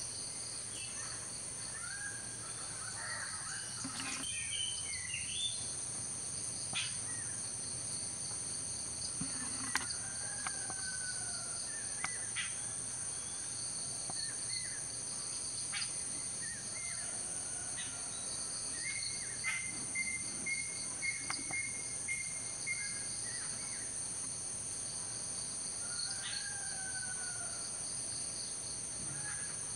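Outdoor ambience: a steady, high-pitched drone of insects throughout, with scattered bird calls and whistles over it.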